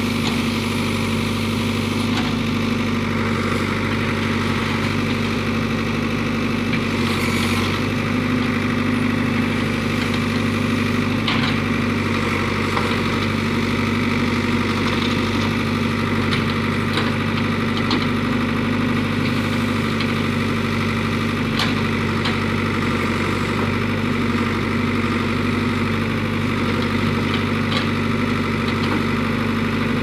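Ford backhoe loader's diesel engine running steadily at an even speed while the backhoe digs out brush and stumps.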